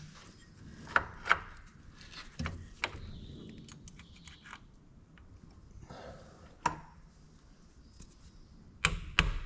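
Scattered clicks and knocks of hand work on shifter cables and their clamp. Near the end comes a quick run of sharp taps, about three a second.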